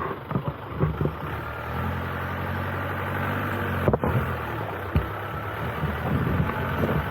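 Jeep engine running steadily, with a few knocks and thumps, the sharpest about four seconds in.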